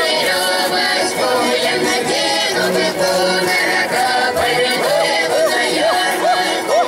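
Choir singing a Russian folk song, loud and continuous, several voices together.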